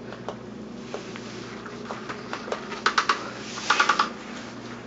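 Battery-powered Undercover Mouse cat toy switched on and running, its motor driving the wand under the nylon skirt. A faint steady hum, with two short bursts of rapid clicking about three and four seconds in.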